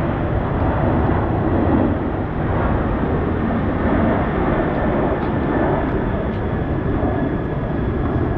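Jet airliner flying low overhead on its way to or from the runway: loud, steady engine noise, echoing off high buildings.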